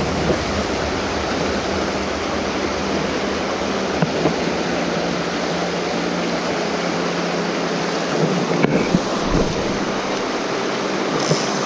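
Fast river current rushing and splashing over rocks, a steady rush of water.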